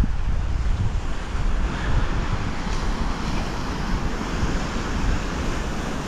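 Surf washing onto a steep beach, mixed with wind buffeting the microphone as a steady low rumble.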